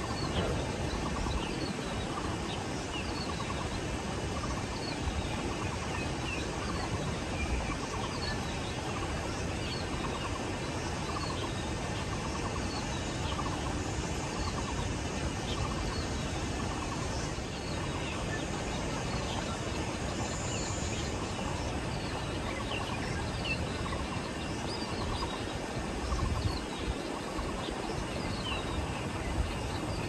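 Birds giving short, falling chirps over and over, roughly one a second, over a steady outdoor hiss. Low gusts of wind buffet the microphone near the end.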